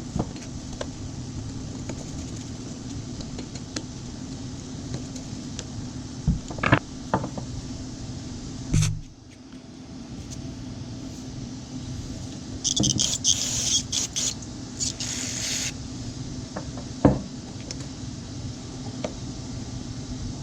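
Steady low machine hum with scattered knocks and clicks of small parts being handled. A louder thump comes about nine seconds in, and around two-thirds through there are several short hissing bursts like spray or blown air.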